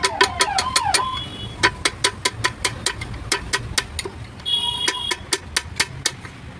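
Rapid, evenly paced metal-on-metal tapping, about five strikes a second, typical of hammering parts home during gearbox assembly. A short high beep-like tone sounds about four and a half seconds in.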